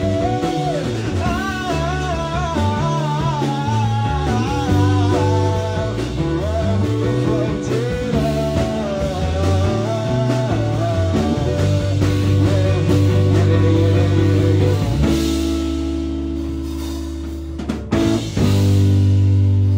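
Live rock band with electric guitar and drum kit playing: a wavering lead melody over the first half, then a long held chord that cuts out briefly near the end and comes back.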